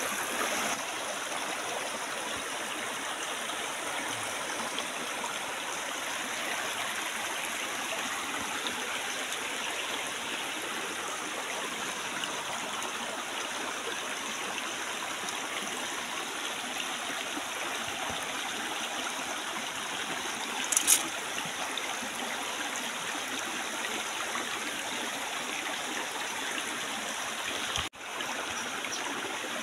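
Shallow rocky stream rushing steadily over and between stones. A single short, sharp high-pitched sound stands out about two-thirds of the way through, and the sound briefly cuts out near the end.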